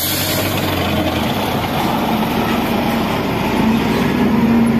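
Diesel engines of a wheel loader and a loaded dump truck running steadily. The engine note grows louder and stronger in the second half as the truck pulls away.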